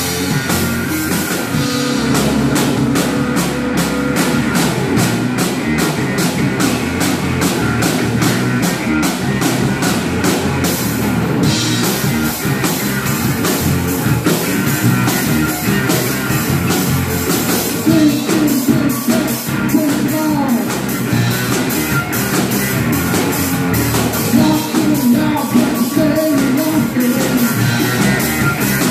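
Live blues-rock band of electric guitar, bass and drum kit playing loud through amplifiers and a PA. The drummer keeps quick, even cymbal strokes for about the first eleven seconds, then the pattern changes, and singing comes in over the band in places later on.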